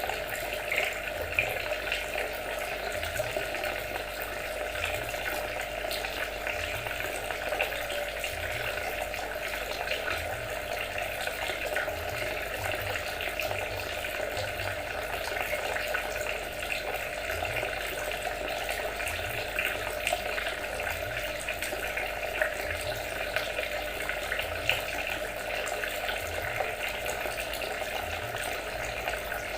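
Water trickling and splashing steadily, with small irregular splashes.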